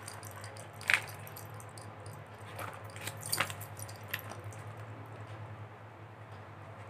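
A paper bill rustling as it is unfolded and handled, in a few brief crackles, the sharpest about a second in, over a steady low hum.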